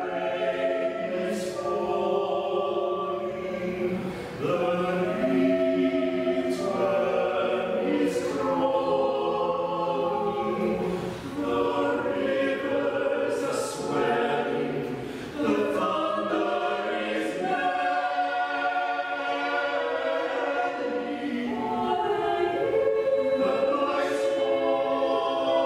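Small choir singing a slow part-song live, sustained chords in several voice parts moving from note to note, with sibilant consonants and short breaks between phrases.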